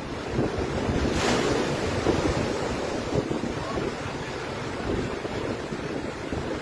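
Large storm waves surging and breaking, with strong wind buffeting the microphone. A louder surge comes about a second in.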